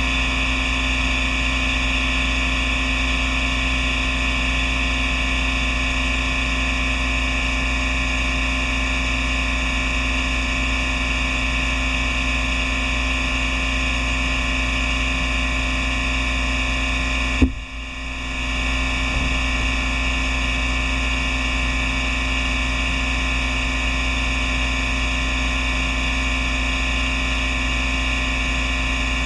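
Misting system running steadily: a continuous mechanical hum with hiss as a wide-angle fog nozzle sprays non-stop. About 17 seconds in there is one sharp click, after which the sound dips briefly and builds back up over a second or two.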